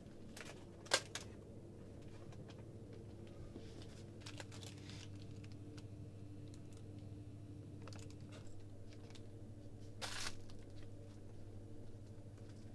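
Scattered soft clicks and rustles of packets being handled, the sharpest click about a second in and a louder rustle about ten seconds in, over a steady low hum.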